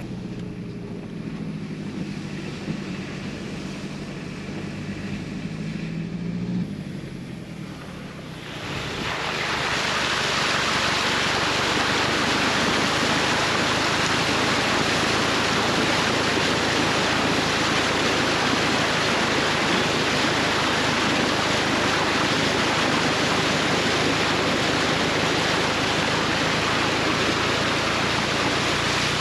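A vehicle engine running for the first eight seconds or so, then a sudden switch to heavy rain pouring down in a loud, steady hiss.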